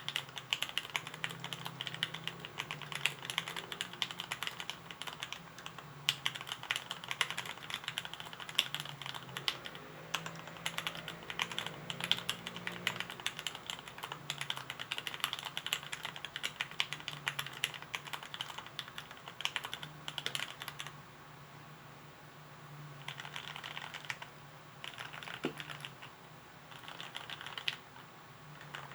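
Typing on a mechanical keyboard with an acrylic case and plate (Arisu layout), fitted with lubed, filmed Gateron Yellow KS3 linear switches and ABS keycaps. Keystrokes come in a steady stream, then in the last third break into short bursts with pauses between them.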